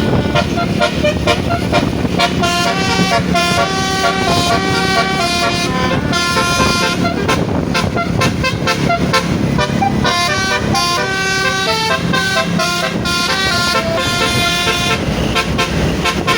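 Basuri multi-tone telolet bus horn playing a melody in short stepped notes, over a low road rumble.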